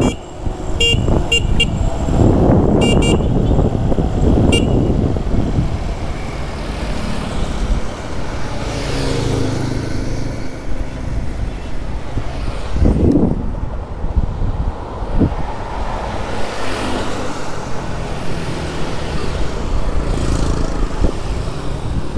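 Riding a motorbike through road traffic: a steady engine and road rumble, with vehicle horns honking among the passing traffic.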